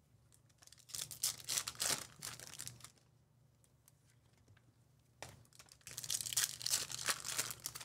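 Foil wrappers of Topps Chrome baseball card packs being torn open and crinkled, in two bouts: one about a second in, another after about five seconds.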